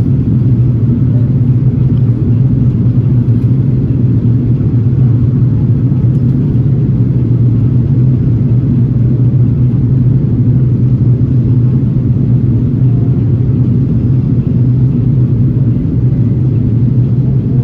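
Steady low cabin drone inside an Airbus A330-900neo airliner in flight: the Rolls-Royce Trent 7000 engines and the air rushing past the fuselage, heard from a window seat beside the wing.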